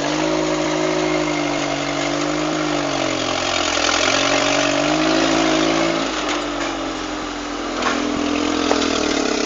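Off-road 4x4's engine working at low speed, its revs rising and falling as it crawls out of a rock section, with a couple of short knocks near the end.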